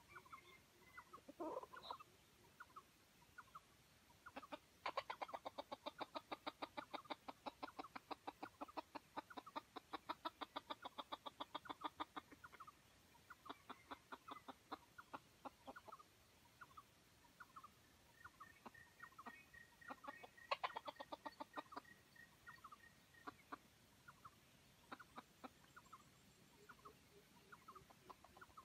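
Wild junglefowl clucking faintly: a fast, even run of clucks, several a second, lasting about seven seconds, then scattered single clucks. A thin, rapid high piping runs for a few seconds past the middle.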